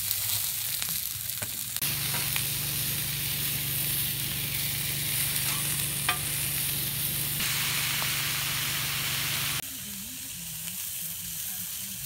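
Food sizzling on a Blackstone 17-inch propane griddle's hot steel top, a steady hiss, with a few sharp clicks of steel spatulas. The sizzle changes abruptly twice.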